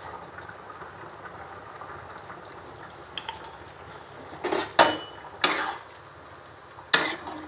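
A metal spoon stirring a simmering curry in an iron kadhai, knocking and scraping against the pan a few times in the second half, over a steady low hiss.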